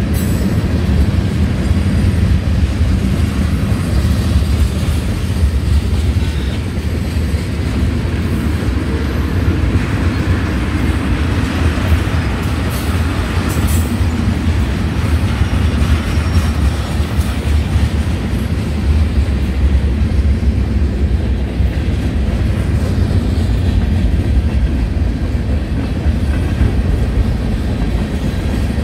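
Freight train cars (tank cars, hoppers and boxcars) rolling past close by: a loud, steady low rumble of steel wheels on the rails, with more high-pitched rail noise for several seconds in the middle.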